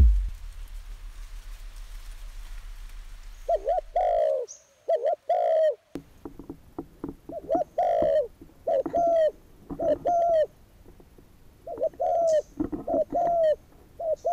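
Dove cooing: short rising-then-falling coos repeated in quick groups of two to four, starting about three and a half seconds in. Before them a low steady hum fades out.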